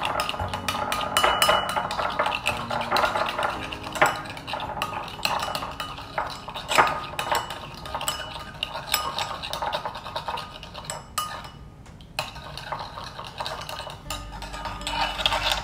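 Metal spoon stirring in a small ceramic bowl, clinking and scraping against the sides in quick repeated strokes as gelatin is mixed into a little cold water to bloom. The stirring stops briefly about three-quarters of the way through.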